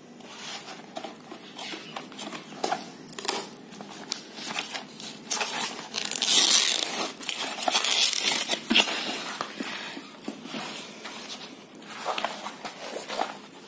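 Old varnished painted canvas being cut and torn apart by hand, crackling and rasping in irregular bursts, loudest for a few seconds past the middle.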